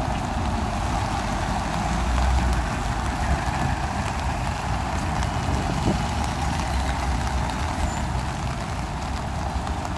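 Traffic on a rain-soaked city street: cars running on the wet road with a steady hiss, and a low engine rumble that swells about two seconds in.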